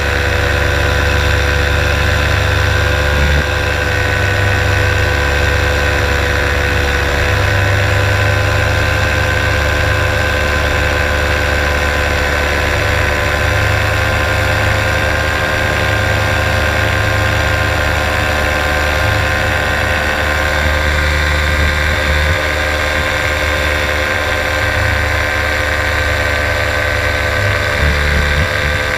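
Paramotor engine and propeller running steadily in flight, holding one even pitch.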